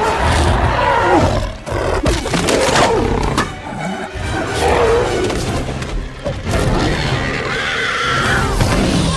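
Movie fight soundtrack: orchestral score under the roars and growls of a giant gorilla and a tyrannosaur, with a few heavy thuds of the struggle.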